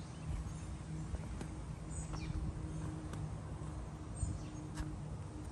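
Wind buffeting the microphone with a low rumble, over a steady low hum, with a few faint bird chirps.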